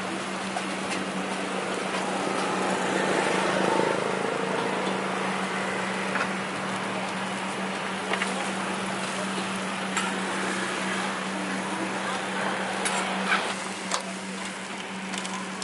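Skewered meat sizzling on a charcoal grill, a steady hiss with a few short clicks, over a constant low hum.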